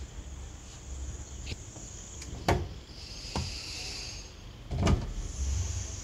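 Knocks and scraping from the doors and plastic fittings of an empty refrigerator being handled. There are two sharp knocks, about two and a half and five seconds in, the second the louder, with hissing scrapes of plastic between them and near the end.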